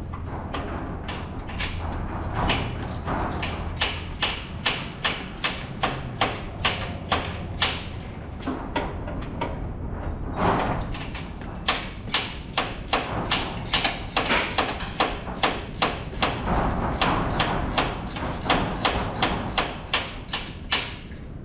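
A long, regular run of sharp knocks or clicks, about two to three a second, with a low steady hum under them for the first several seconds that then fades.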